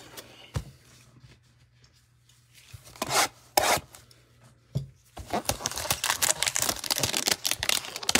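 Cardboard Donruss football card hanger box handled with gloved hands: a thump and a couple of loud scuffs as it is set down, then from about five seconds in a dense crackling rub and tear of cardboard as the box is gripped and opened.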